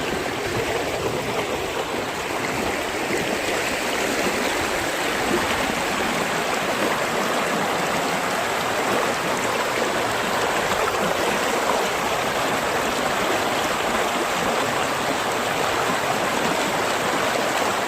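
Flowing river water, a steady even rush with no breaks.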